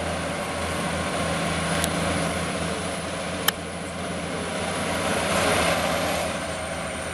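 Diesel engines of tractor-trailer trucks labouring up a mountain grade, a steady low drone. There is a sharp click about three and a half seconds in, and the sound swells for about a second around five seconds in.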